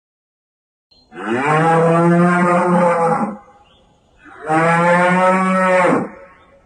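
Cattle mooing: two long, loud moos, the first starting about a second in and the second about halfway through.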